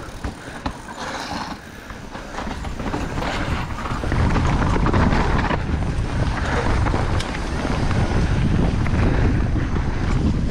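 Downhill mountain bike riding fast down a wet, muddy dirt trail: tyres running over mud and roots, the bike clattering with many small knocks, and wind buffeting the microphone. It gets louder, with a heavier rumble, about four seconds in as the speed picks up.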